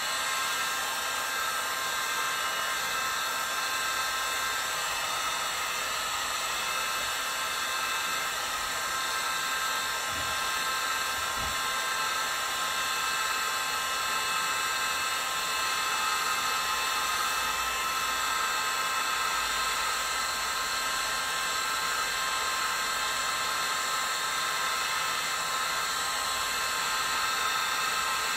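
Handheld electric heat gun running steadily, an even rushing hiss of its blower, as it shrinks a heat-shrink grip sleeve down onto a racquet handle.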